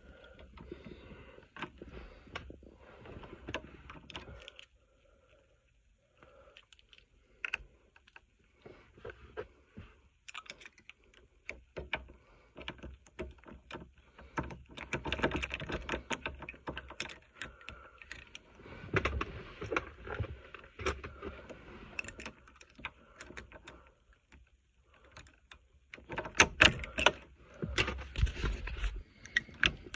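Keys jangling and small metal clicks and rattles as a new ignition lock cylinder is worked into a Honda Civic's steering column housing until it locks in place, in irregular bursts with short quiet pauses.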